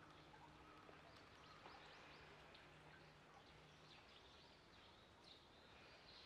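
Near silence: faint outdoor ambience with small, faint bird chirps here and there, and a faint low hum that stops about four seconds in.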